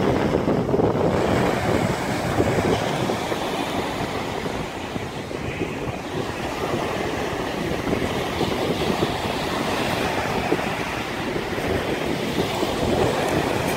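Strong wind buffeting the microphone over rushing water and surf, a steady rumbling roar.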